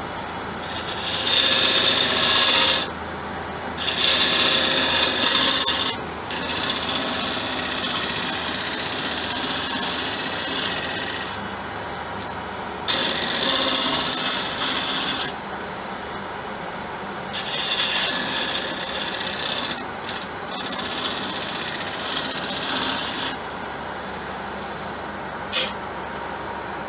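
Bowl gouge cutting the outside of a spinning acacia bowl blank on a Laguna 1836 lathe running at about 950 rpm. The scraping noise of the cut comes in about six passes of two to five seconds each, with the lathe's steady running hum in the gaps between them.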